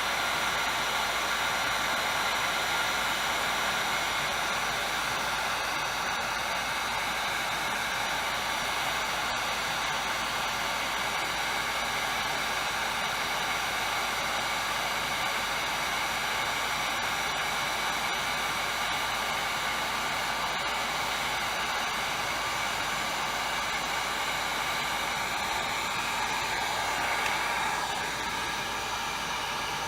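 Electric heat gun blowing steadily, a fan-driven hiss with a fixed whine; the tone shifts slightly near the end.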